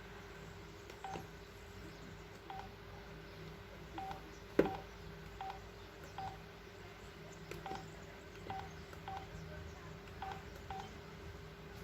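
LG KU950 mobile phone giving short key-press beeps, about ten of them at irregular intervals, as its buttons are pressed. One sharper click about four and a half seconds in, over a faint steady hum.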